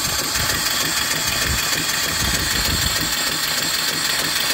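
Steam mill engine (3-inch bore, 4-inch stroke) running on boiler steam: a steady hiss of steam with the engine's repeating low beat underneath.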